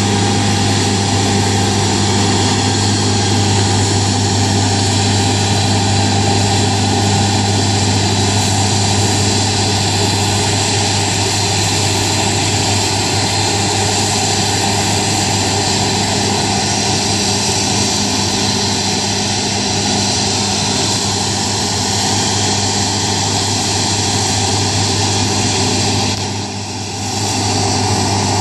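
John Deere S680i combine harvester running under load while cutting and threshing wheat: a steady low engine hum under a dense rushing machine noise, dipping briefly near the end.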